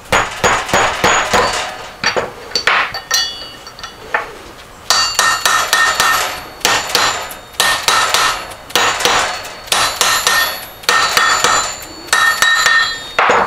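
Hammer blows driving a gear down onto an upright Porsche 912 crankshaft through a metal driver. A quick flurry of taps at the start, a short pause about four seconds in, then steady strikes about twice a second, each with a short metallic ring.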